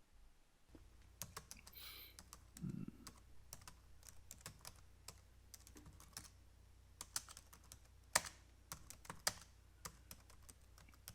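Computer keyboard being typed on in quiet, irregular runs of keystrokes, with one sharper key strike about eight seconds in, over a faint low hum.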